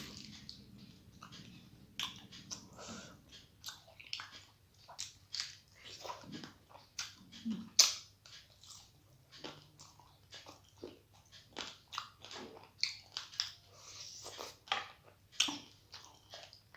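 A person chewing food close to the microphone: many short, irregular mouth clicks and smacks, the loudest about eight seconds in.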